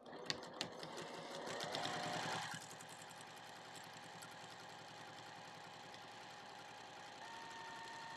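Sewing machine top-stitching along a fabric edge: a fast run of needle strokes for about the first two and a half seconds, then running more quietly and steadily.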